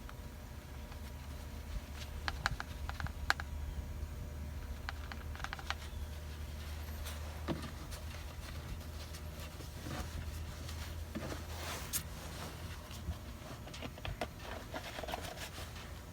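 Scattered light clicks and taps of hand tools and parts being handled during a fuel filter and fuel line job, over a steady low hum.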